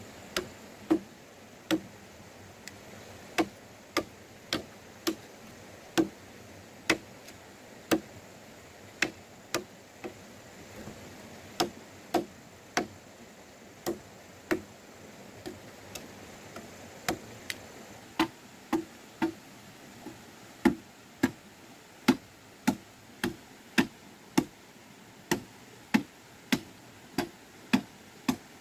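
Machete chopping into wood: a long series of sharp, evenly paced knocks with a short wooden thud, about one and a half strokes a second, some strokes harder than others.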